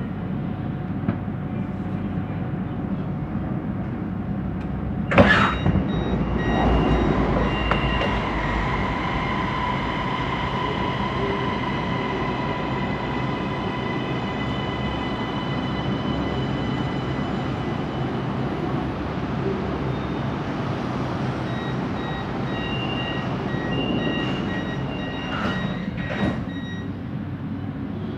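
Siemens Inspiro metro train running, heard from inside the car: steady wheel-on-rail rolling noise with a loud clunk about five seconds in, followed by steady whining motor tones.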